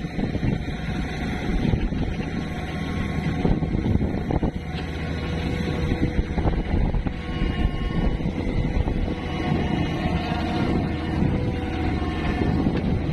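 Backhoe's diesel engine running steadily under work, with faint whines that waver in pitch from about six seconds in.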